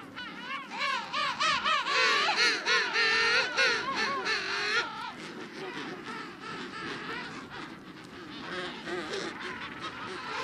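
Emperor penguin colony calling: many overlapping warbling calls that waver up and down in pitch, loudest for the first five seconds or so, then a quieter continuous chorus.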